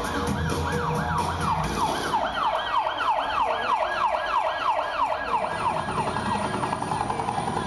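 Siren sound effect in the skating program's music over the arena loudspeakers: a rapid falling wail repeating about four times a second, over music that drops away about two seconds in, the wail fading near the end.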